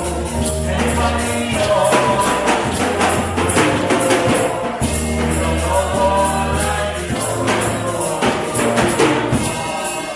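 Church music: voices singing over a rhythmic tambourine beat and a bass line that changes note every second or two.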